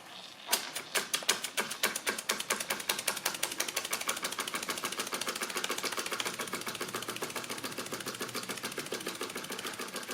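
KJ Miller toy steam engine, beam version, starting up on built-up steam about half a second in: a rapid clicking, chuffing rhythm that quickly picks up speed and then runs steadily. The clatter comes from a loosely fitted, wet-running little engine.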